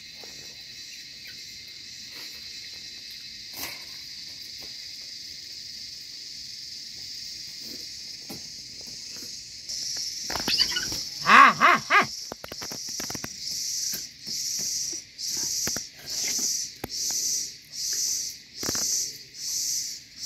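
Steady high insect buzzing that becomes an even pulsing, about one and a half pulses a second, from about halfway. Near the middle comes a loud animal cry lasting a second or two, with faint clicks of fingers on a metal plate throughout.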